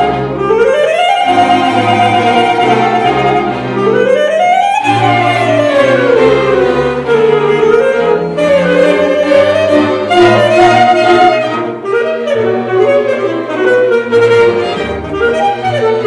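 A symphony orchestra playing classical music, with a solo melodic line that sweeps up in quick rising runs near the start and again about four seconds in, then winds back down over the accompaniment.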